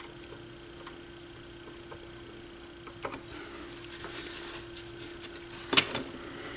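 Light clicks and taps of small hand tools and parts on a workbench, with one sharper knock near the end, over a faint steady hum.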